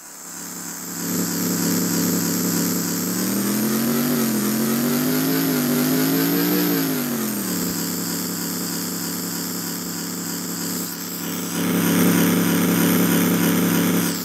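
Simulated RC-car engine sound from an Arduino-based sound kit played through a small speaker, with a 3 W amplifier behind it: it idles, revs up in pitch from about three seconds in, drops back to idle around seven seconds, and gets louder again near the end.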